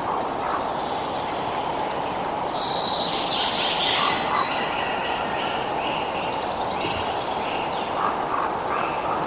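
Birds calling over a steady rushing background, with a burst of overlapping high, descending calls in the middle and short, lower repeated calls near the start and again near the end.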